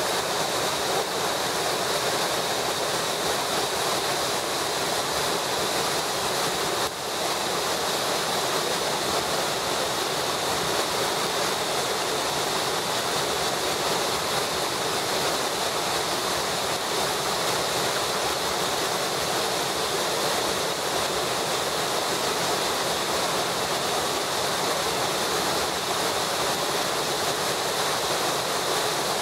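The Thusfall waterfall on the Eger running at full flow after being opened, a heavy muddy torrent pouring down a rocky cascade in a steady, unbroken rush of water.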